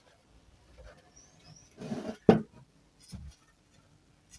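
A few short, high bird chirps in the background, and a single sharp knock a little after two seconds in, with soft rustling around it.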